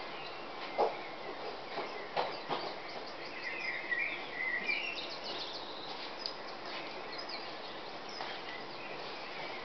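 Dawn chorus: several songbirds singing at once over a steady background hiss, with a run of warbling song phrases about four to five seconds in and short, sharp calls scattered throughout.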